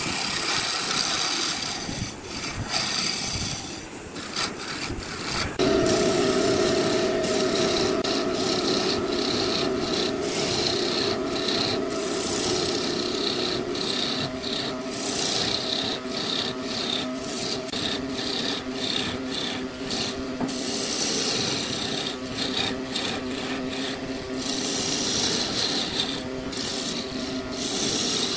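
Hand-held turning tool cutting a spinning wooden vase on a wood lathe, a continuous scraping hiss with short ticks. About six seconds in the cut gets louder and takes on a steady droning tone.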